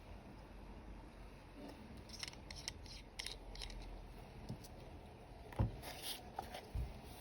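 Small items and packaging being handled at close range: scattered light clicks and rustles, with a single louder knock about five and a half seconds in.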